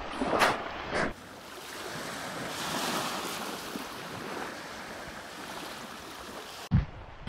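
Footsteps on the beach for the first second, then small waves washing onto the shore in a steady hiss that swells about two seconds in and eases off. A low thump near the end.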